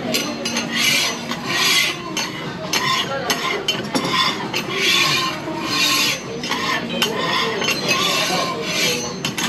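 A wide metal spatula scraping across a teppan griddle plate in repeated strokes, about one a second.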